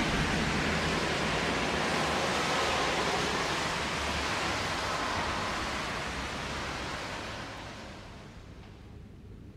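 A steady rushing noise, like a wash of static or falling water, that fades away over the last few seconds.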